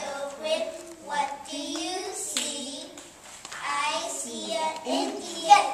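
A group of young children singing or chanting a song together in unison, with hand claps among the singing.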